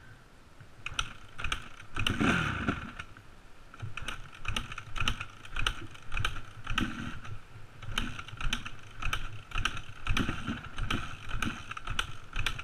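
Dirt bike ridden slowly over bumpy grass, its engine muffled under irregular clattering knocks, a few a second, as the bike and rider-mounted camera jolt over the ground. The engine swells briefly about two seconds in.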